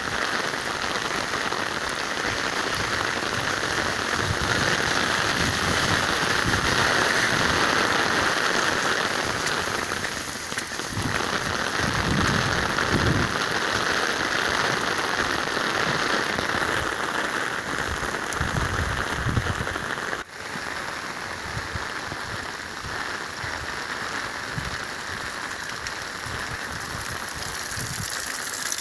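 Steady rain falling on a street, pattering on the wet pavement and parked cars, heard as a continuous hiss.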